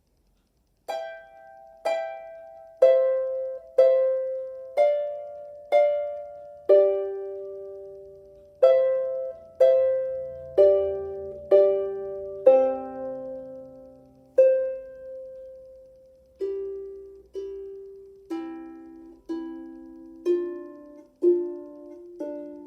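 Harp playing a simple melody of single plucked notes, each ringing and fading, about one a second with a few held longer and some two-note chords near the end.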